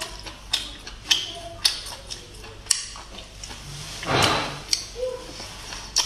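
Eating sea snails: a string of sharp clicks and smacks, then a long noisy slurp about four seconds in, the loudest sound, typical of sucking the meat from a snail shell.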